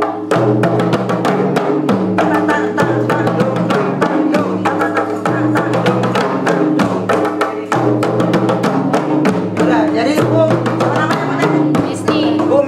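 Several rebana frame drums struck by hand together in a steady, repeating beat, several strokes a second. Sustained low notes of backing music, changing every second or two, sound underneath.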